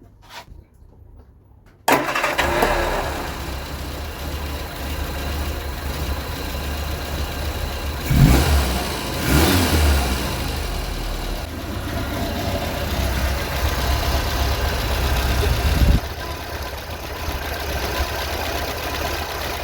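Vauxhall Viva HC's 1256 cc four-cylinder engine started about two seconds in and running to warm up while the carburettor is tuned; it is revved briefly twice around the middle, then settles to a quieter idle a few seconds before the end.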